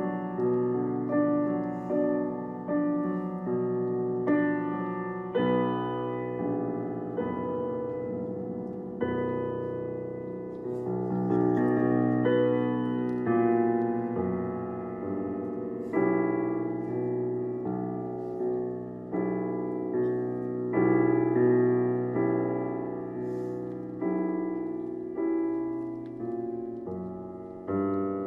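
Solo piano music played on a digital stage piano: slow chords and melody notes struck about once a second, each left to ring and fade before the next.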